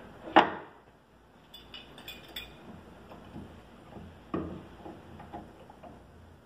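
Knocks and metallic clinks as a plastic lock-mortising jig is set against a door edge and a steel C-clamp is fitted over it and screwed tight. A sharp knock about half a second in is the loudest; a second knock comes about four seconds in, with light clicks between and after.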